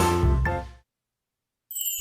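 Background music with a steady beat fades out within the first second, then complete silence, and new music starts just before the end.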